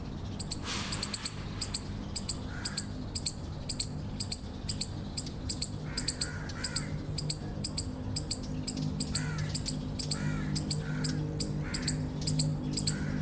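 Eastern chipmunk chipping: a long, irregular run of short, sharp, high-pitched chips, several a second. This repeated chip is the eastern chipmunk's alarm call.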